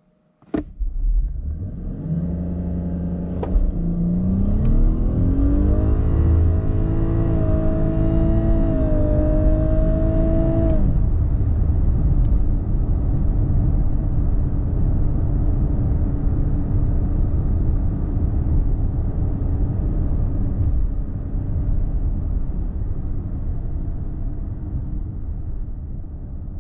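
Lexus LS 500h's 3.5-litre hybrid V6 accelerating hard from a standstill, heard from inside the cabin. The engine note climbs for a few seconds, then holds at steady revs. About eleven seconds in the engine note drops away, leaving a steady road and wind rumble that fades near the end.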